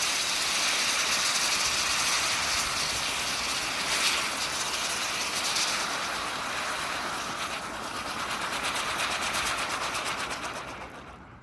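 Spinning ground fountain firework hissing steadily as it sprays sparks, with a rapid, even pulsing as it whirls. The hiss dies away near the end.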